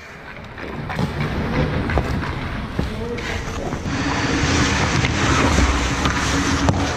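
Ice hockey play heard from inside the goal: skate blades and goalie pads scraping the ice, with a few sharp stick-and-puck knocks and indistinct players' voices. The scraping noise grows louder over the first few seconds as play comes toward the net.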